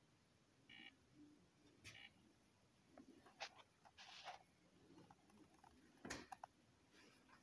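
Near silence: room tone with a few faint clicks and knocks, the strongest about six seconds in, and two short, faint, high chirps about a second apart near the start.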